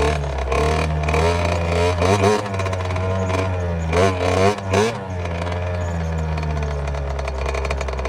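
Suzuki RM60's small two-stroke single-cylinder engine running as the bike is ridden, its revs rising and falling, with sharper rev blips about two seconds in and again around four to five seconds in.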